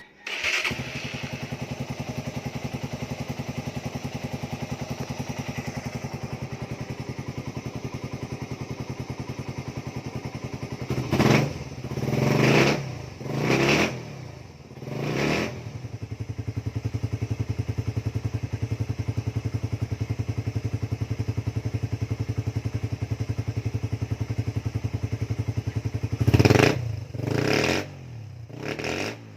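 Suzuki Raider 150 carb motorcycle engine running through an aftermarket Apido exhaust pipe, idling with an even, fast pulse. Its throttle is blipped about four times in quick succession around the middle and three more times near the end, each rev rising sharply and dropping back to idle.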